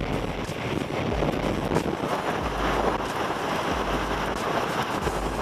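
Hurricane-force wind blowing hard with driving rain. Gusts hit the microphone every second or so as low rumbles.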